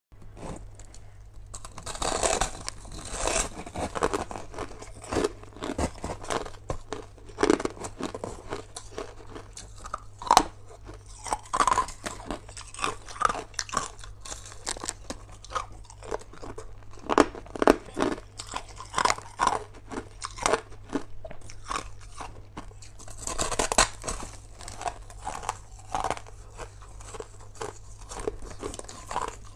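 Crushed ice and ice cubes bitten and chewed up close: many irregular crisp crunches, with busier stretches of crunching near the start and again about three-quarters of the way through, over a steady low hum.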